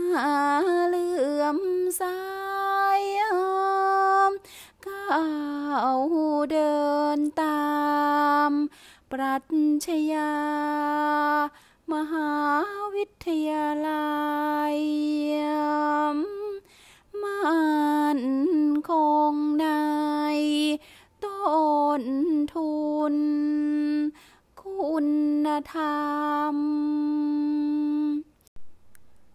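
A solo voice chanting Thai sepha verse: long held notes that bend and slide between pitches, in phrases of a few seconds broken by short breaths.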